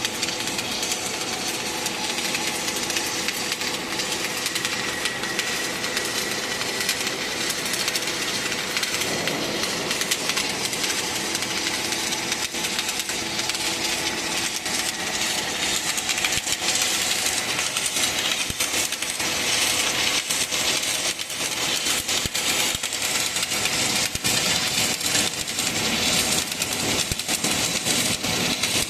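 Submerged arc welding machine running a weld: a steady crackling hiss with a constant machine hum beneath it.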